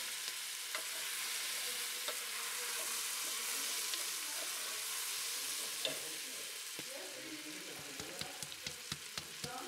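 Onions, ginger, grated coriander and curry powder frying in oil in a stainless steel pot while being stirred with a wooden spoon: a steady high sizzle, with scattered light clicks that come more often near the end.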